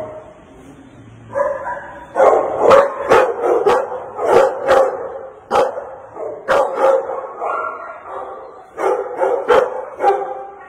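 Pit bull-type dog barking over and over from behind its kennel gate. The barks start about a second in and come in quick runs with short pauses.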